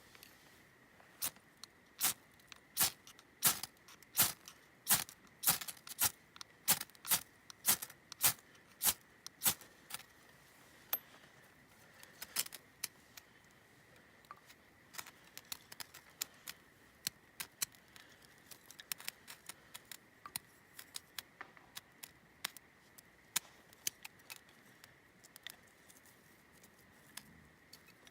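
A series of sharp clicks and snaps, about one or two a second for the first ten seconds, then sparser and fainter, over a faint steady high-pitched tone.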